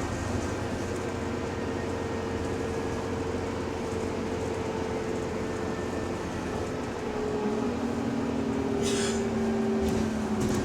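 Bus driveline running under way, heard from inside: a steady rumble with a thin whine that slowly falls in pitch, and a second, lower whine coming in about three-quarters of the way through. The whine is the subtle, weird differential noise of this bus. A brief hiss sounds shortly before the end.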